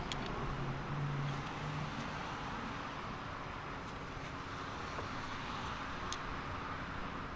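Steady outdoor background noise with a couple of light metallic clicks as short pieces of cut steel round bar are handled, one right at the start and one about six seconds in.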